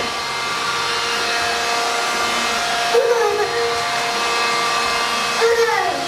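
Vacuum cleaner motor running steadily, a constant rushing hum with a steady whine. A short high voice breaks in briefly about three seconds in and again near the end.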